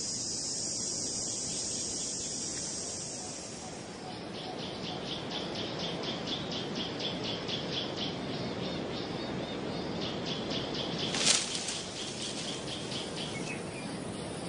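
Forest ambience: a steady high insect drone, then from about four seconds in a rapid, regular high chirping, with one brief sharp sound about eleven seconds in.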